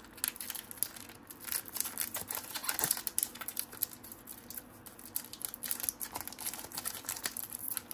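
Trading cards being handled in the hands: a rapid, irregular run of light clicks, rustles and crinkles.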